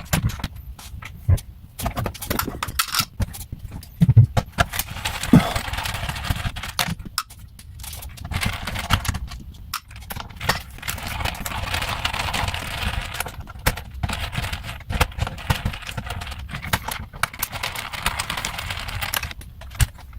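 Screwdriver with a Torx bit backing out the screws on the back of a car instrument cluster: many scattered metallic clicks and rattles with patches of scraping.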